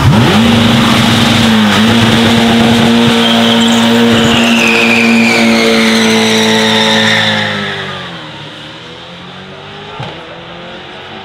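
Mercedes-AMG GT Track Series' twin-turbo 4.0-litre V8 held at steady high revs while the rear tyres spin and screech in a smoky burnout. After about seven seconds the car pulls away and the engine sound drops and fades.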